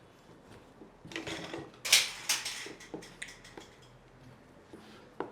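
Puri dough being kneaded by hand in a dish: a few bouts of rubbing and scraping with clattering knocks against the dish, the loudest about two seconds in, and a single sharp click near the end.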